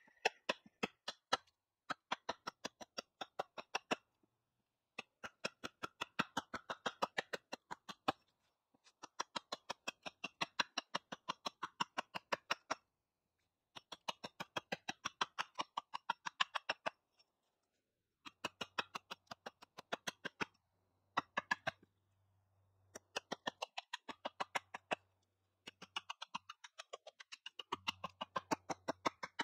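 A hand saw cutting a green wood pole, in runs of quick rasping strokes, about five a second, broken by short pauses.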